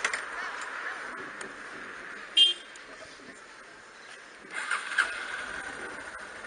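Road vehicle sound with a short high-pitched horn toot about two and a half seconds in, and a louder rush of noise around five seconds.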